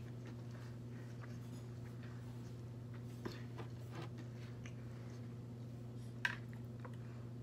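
Quiet chewing, then a few light clicks and taps as a plastic tumbler is lifted and sipped through a straw, the sharpest click about six seconds in. A steady low hum runs underneath.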